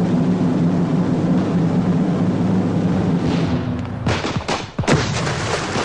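Battle noise from a film soundtrack: a steady, dense roar, then a quick cluster of about four sharp gunshots around four seconds in.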